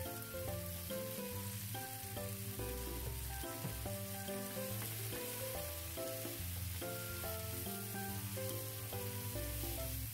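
Sliced onions and green pepper strips sizzling in oil in a frying pan as they are stir-fried, with background music playing over the sizzle.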